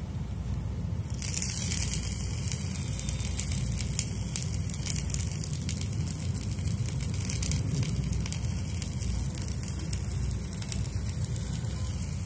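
Crackle and hiss of cooking over a fire of dry twigs, with many small pops. The hiss starts suddenly about a second in and runs over a steady low rumble.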